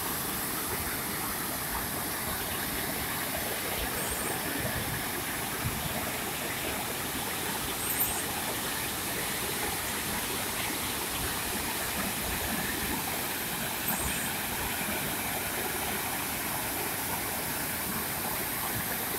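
Steady rush of floodwater pouring through a breach in an earthen dam, with a few faint ticks.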